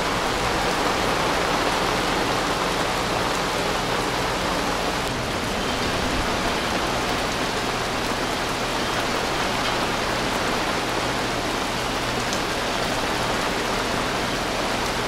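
Heavy tropical downpour: a steady hiss of rain pouring onto the water.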